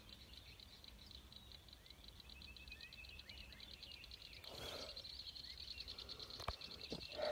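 Faint lakeside ambience: small birds chirping over a steady, high, fast-pulsing trill, with a single sharp click near the end.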